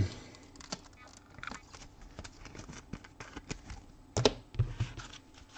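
Trading cards being handled and flipped through by hand: a run of small clicks and snaps of card stock, with a louder cluster about four seconds in.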